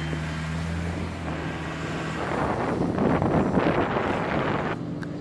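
Small flight-deck utility vehicle running as it drives past: a steady low engine hum, then a louder rushing noise in the middle that cuts off suddenly near the end.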